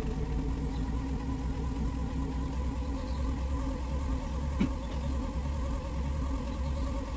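Hoverboard hub motor spun by the spin bike as a generator, humming steadily while it puts out about 165 watts, its hum wavering slightly in pitch. A single click about four and a half seconds in.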